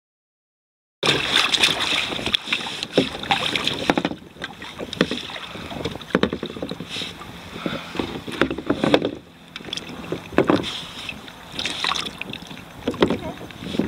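Sea water splashing and slapping against a sit-on-top kayak, with irregular knocks and wind buffeting the microphone, starting about a second in.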